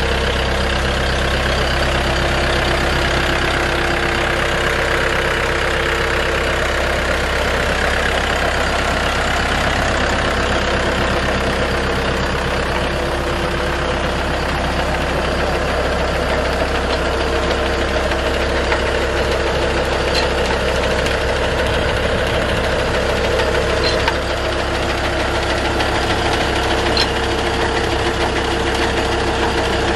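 Massey Ferguson tractor's diesel engine running steadily under load, driving the shaft and belt pulleys of two tubewell pumps, with water gushing from the pump outlet pipe.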